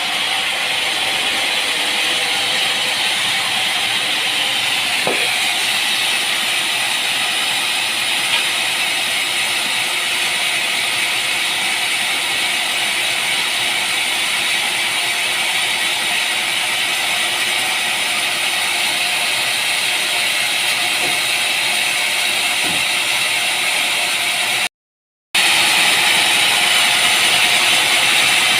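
Steady, loud machine running noise, with a brief dropout to silence about 25 seconds in.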